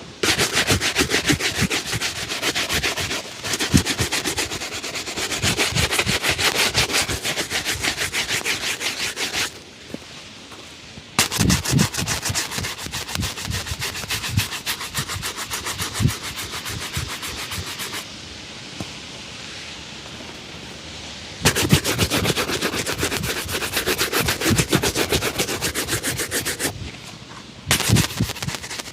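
Shoe-shine rubbing: fast back-and-forth strokes on a leather shoe, in runs of several seconds broken by short pauses.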